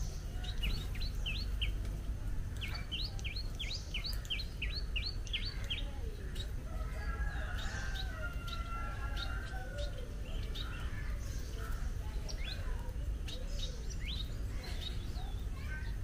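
Small birds chirping: quick runs of short, sharp chirps, one about half a second in and a longer run from about two and a half to five and a half seconds, then scattered single chirps, over a steady low rumble.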